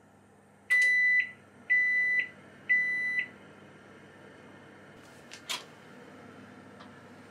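Toshiba superheated-steam oven range beeping three times, each beep about half a second long and a second apart: the signal that the timed bake has finished. A sharp click follows as the oven door is opened.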